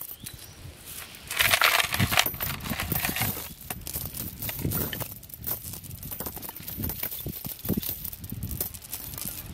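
Steel chain rattling and clinking as it is picked up and its links handled and untangled, with the loudest rattle about one and a half seconds in, followed by irregular small clinks and knocks.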